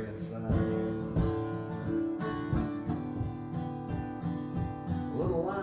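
Acoustic guitar being strummed and picked, its chords ringing on, with a steady run of strokes.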